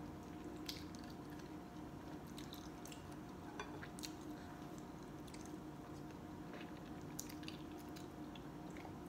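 A person chewing a mouthful of soft-boiled egg with runny yolk, faint wet mouth sounds with a few small clicks scattered through.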